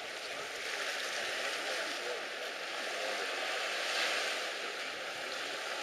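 Steady rushing hiss of sea water and wind, swelling slightly about four seconds in.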